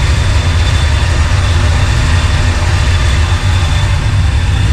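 Chevrolet C10 pickup's engine idling steadily, a continuous low rumble, run to circulate coolant while air is burped out of the cooling system.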